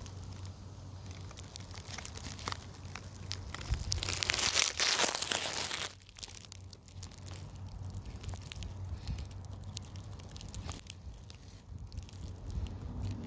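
Crackling and rustling of dry leaf litter and grass being handled close to the microphone, with scattered small clicks and a louder rustle for about two seconds in the middle.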